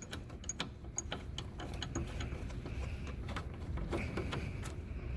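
Irregular light clicks and ticks from hands working the MIG welder's wire drive as the drive and its tension arm are snugged down and set back in place, over a low steady hum.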